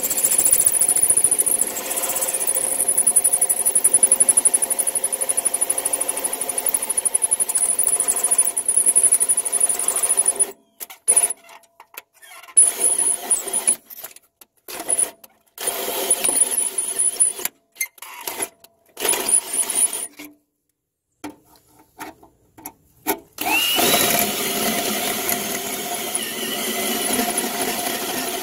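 Cordless drill driving a small hole saw through oil-lubricated sheet metal of a Jeep Cherokee XJ's body, with a high whine. It runs steadily for about ten seconds, then stops and starts in short bursts, then runs steadily again near the end.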